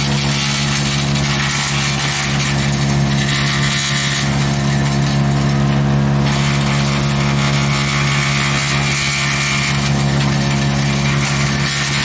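Barreto 3107C wood chipper running steadily at full speed, a constant engine drone. Over it a rushing, crunching noise comes and goes, strongest near the end, as sawmill scrap wood is fed through and chipped.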